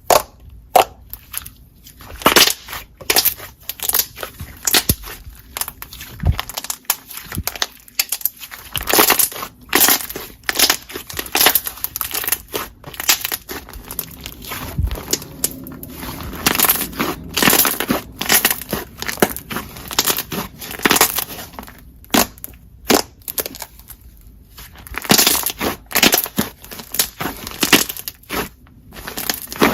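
Jelly slime being squeezed and poked by hand, giving irregular sharp sticky clicks and pops several times a second.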